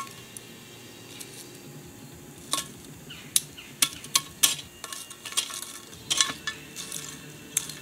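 A metal fire tool clinking and scraping on a cast-iron Dutch oven lid as hot coals are placed on top of it. It is a string of sharp, irregular metallic clinks, starting a couple of seconds in and bunched in two clusters.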